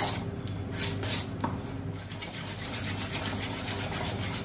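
Wire whisk beating butter and peanut butter in a bowl: quick repeated scraping strokes, with short clicks of the wires against the bowl that come faster in the second half.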